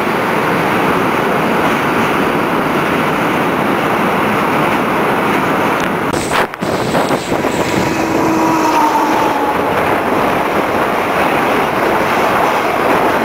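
Steady rushing of wind and wheels on track, heard from the open window of a moving passenger train, with a short break about halfway through. In the second half another electric train passes close alongside, and there is a faint tone that falls slightly in pitch.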